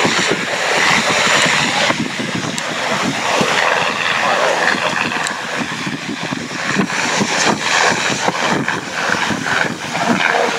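A steam locomotive approaching with its train, heard from a distance as a steady rush, with wind buffeting the microphone in irregular low thumps.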